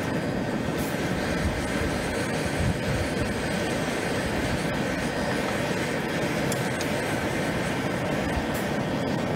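Steady rushing roar of a charcoal forge with air blown through the fire.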